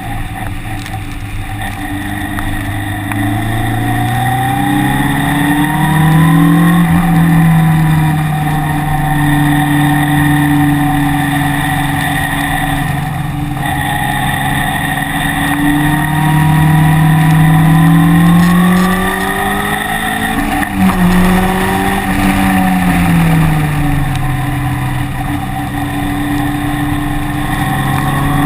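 Engine on a track lap, heard close and steady, repeatedly pulling up through the revs and dropping back as it accelerates and slows. Pitch climbs about 3–7 s and 15–19 s in, with a sharp dip near 20 s and another climb toward the end.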